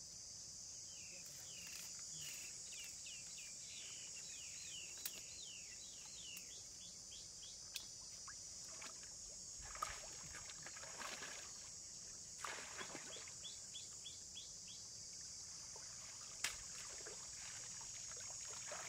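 Outdoor ambience: a steady high-pitched drone, with a bird calling in quick series of short chirps early on and again later. Water splashes and sloshes briefly near the middle, with a few sharp clicks.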